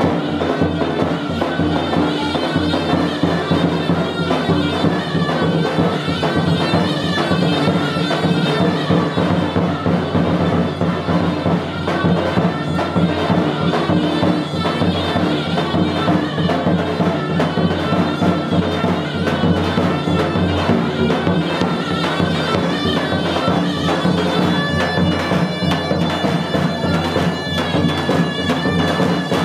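Loud folk dance music for a halay line dance: a reedy wind-instrument melody over a steady drone, with drum beats. About 25 seconds in, the melody settles on a long held high note.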